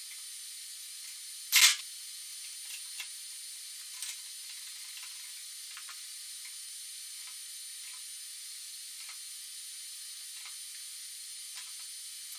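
Hydraulic bottle jack pumped by hand with a long handle, loading a steel tensile test specimen: faint ticks with each pump stroke, every second or so, over a steady hiss. One sharp knock comes about one and a half seconds in.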